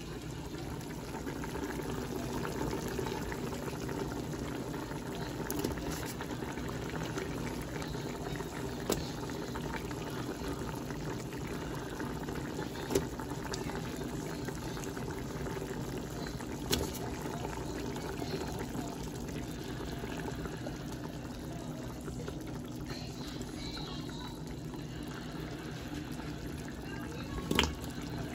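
A pot of meat broth with carrots bubbling steadily at the boil on a gas stove. A few short clicks or knocks come through it, the loudest near the end.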